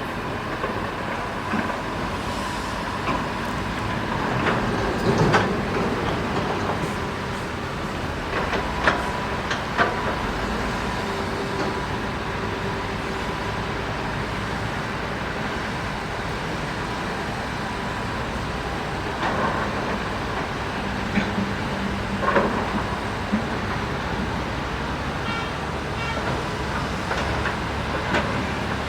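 Heavy excavator and dump truck diesel engines running steadily, with several sharp knocks and clanks along the way, typical of loading material into a truck bed.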